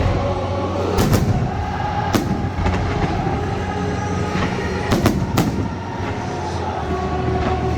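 Fireworks bursting: about five sharp bangs, one about a second in, another a second later and three in quick succession about five seconds in, over music playing.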